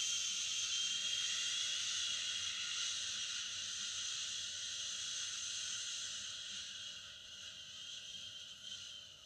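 A woman's long exhaled "shhh" through the mouth, the Do-In healing sound of the Wood element, used to calm liver and gallbladder energy. It holds steady, fades over the last few seconds and stops near the end.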